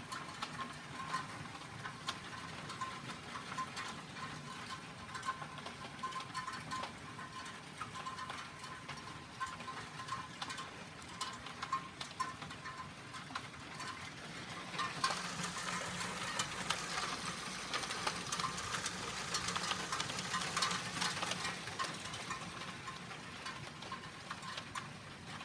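Hail falling hard, a dense crackle of small ticks and patter from hailstones striking the ground and cars. It gets heavier and louder about fifteen seconds in, then eases off near the end.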